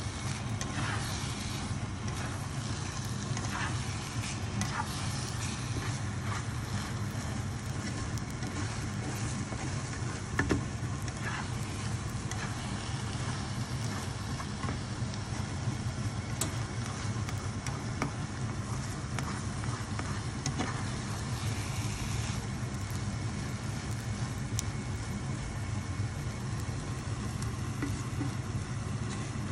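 Egg, eggplant, tomato and onion sizzling in a frying pan, with a plastic spatula scraping and tapping the pan now and then over a steady low rumble. One sharper tap about ten seconds in.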